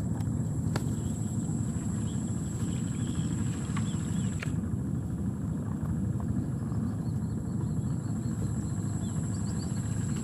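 Low, steady outdoor rumble, most likely wind buffeting the microphone, with a thin steady high whine above it and a few faint clicks and chirps.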